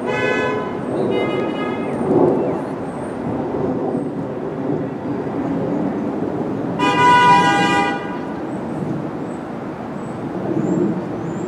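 Subway train horn: two short blasts, then a longer blast of about a second roughly seven seconds in, over a steady low rumble of train and street noise.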